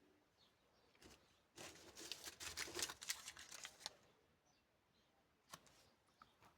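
Crinkling and rustling of candy packaging being handled, a dense run of crackles lasting about two seconds, then a single click a little later.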